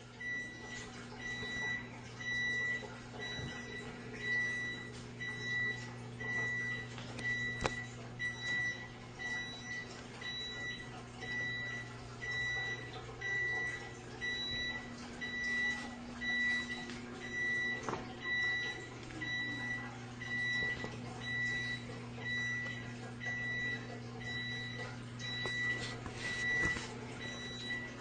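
A high electronic beep repeating steadily, a little more than once a second, over a steady low hum.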